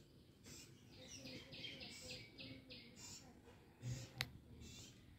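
Faint bird chirps repeating about four times a second for a couple of seconds, with a dull thump and then a sharp click about four seconds in.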